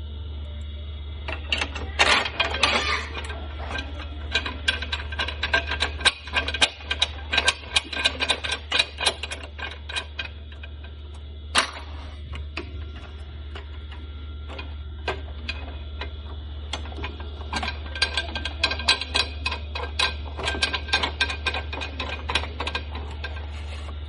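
Rapid, irregular clicking and tapping of small hard parts being handled, in two long runs with a single sharp click between them. A steady low hum lies under it all.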